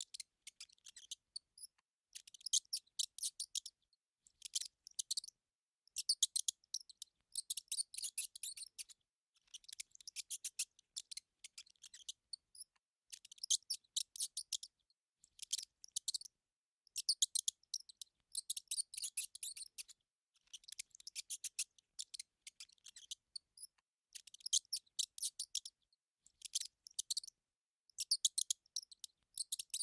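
Mouse sounds: clusters of rapid, high-pitched squeaky clicks, each about a second long, repeating every couple of seconds with short silences between.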